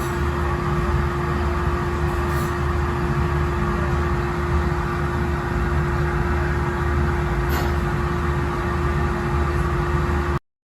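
Steady mechanical hum with one constant tone over a low rumble, with a couple of faint clicks; it cuts off abruptly just before the end.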